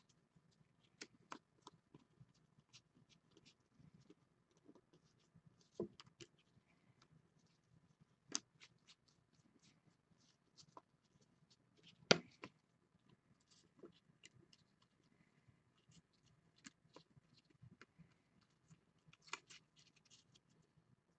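Trading cards being shuffled and flipped through by hand: faint, scattered clicks and ticks of card edges, with one louder snap about twelve seconds in.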